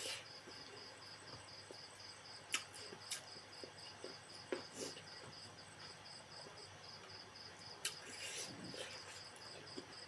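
A cricket chirping steadily in a regular pulsing rhythm, with a few short clicks and smacks scattered through it.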